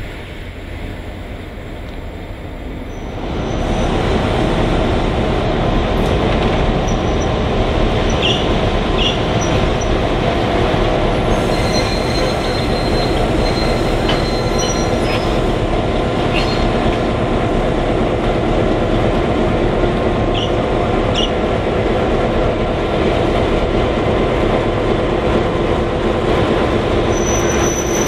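Former Victorian Railways EMD diesel locomotives, X class X31 leading a second unit, running at low speed with a steady diesel engine drone that grows louder about three and a half seconds in. Short high wheel squeals from the flanges on the curve break in several times.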